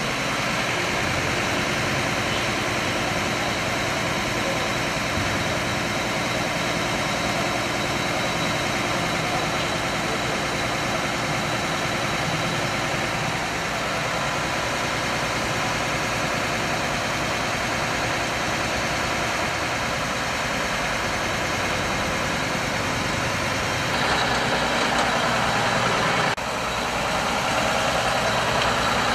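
Tata lorry's diesel engine idling steadily, getting louder for a stretch near the end.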